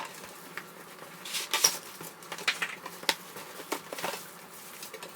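Packaging being handled during unboxing: irregular crinkles, taps and clicks of plastic and cardboard.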